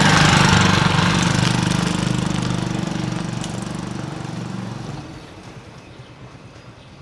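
TVS XL100 moped's small single-cylinder engine running, loudest at the start and fading away over about five seconds as it moves off.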